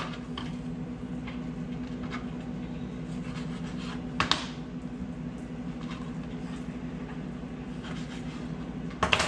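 Knife knocking on a plastic cutting board while raw chicken wings are cut apart at the joints: a few sharp knocks, the loudest about four seconds in and near the end, with fainter taps between. Under them runs a steady low machine hum.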